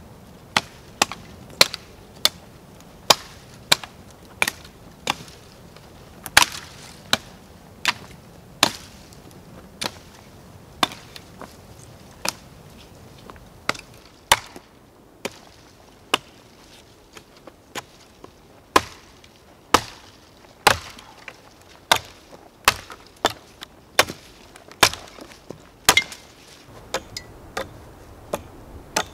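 Small axe chopping branches off a dead fallen tree: a steady run of sharp strikes on dry wood, about one to two a second, with a few short pauses.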